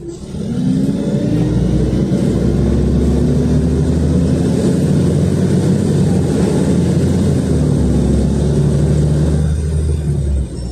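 LiAZ 5292.67 city bus's Weichai WP7NG natural-gas engine pulling away and accelerating, heard from inside the passenger cabin. The engine note rises over the first couple of seconds, then runs loud and steady under load, and drops away suddenly about ten seconds in.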